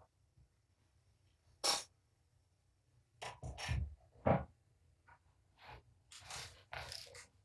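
Irregular short scrapes, rustles and knocks of things being handled or moved: one sharp scrape about two seconds in, a cluster with dull thumps around three to four seconds, and more rustling scrapes near the end.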